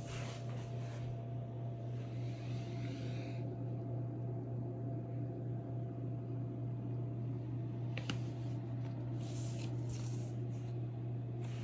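DuraComfort 8000 BTU portable air conditioner running with a steady low hum and a faint higher whine. A few brief rustling noises come and go, with a sharp click about eight seconds in.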